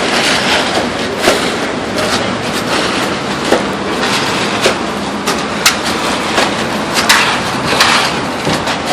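Concrete mixer truck running steadily during a concrete pour, with frequent sharp knocks and scrapes over it.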